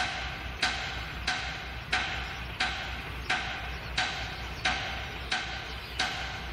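Sharp, evenly spaced ticks, about three every two seconds, over the low hum of an idling diesel locomotive.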